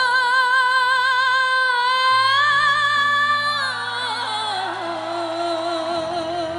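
A woman singing a long high note with vibrato over a sustained keyboard accompaniment. About three and a half seconds in, the voice falls in a quick run of ornamented notes and settles on a lower, wavering held note.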